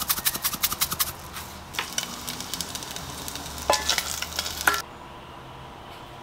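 A quick run of crisp ticks as sesame seeds are sprinkled over kimchi fried rice, then a crackle and scrape as a fried egg is set on top, all stopping about five seconds in.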